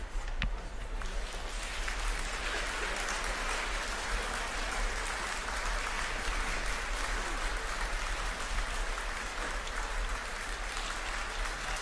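Steady wind rumble on the microphone over the hiss and wash of choppy sea around a small open boat.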